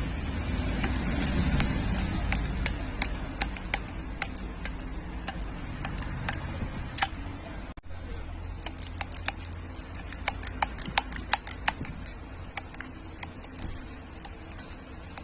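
Hand riveter clicking as it is worked: sharp clicks in irregular runs, several a second in places, over a low steady hum.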